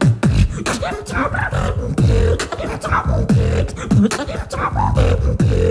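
Human beatboxing into a cupped handheld microphone: a fast run of drum sounds made with the mouth, with sharp snare and hi-hat clicks over deep bass sounds that fall in pitch, and bits of vocalised tone in between.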